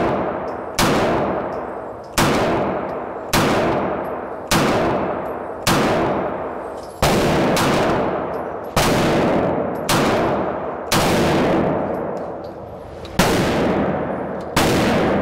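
Beretta M9A4 9 mm pistol fired at a steady pace: about eleven shots, roughly one a second with a short pause near the end, each a sharp report with a long echo from the enclosed indoor range.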